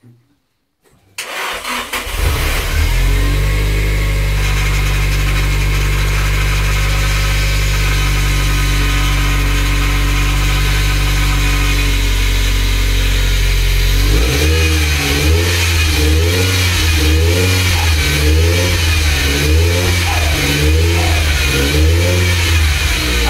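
Nissan 200SX engine starting for the first time after a rebuild: it fires about a second in, stumbles briefly, then settles into a steady idle. Roughly halfway through, the engine speed begins to rise and fall regularly, about once a second.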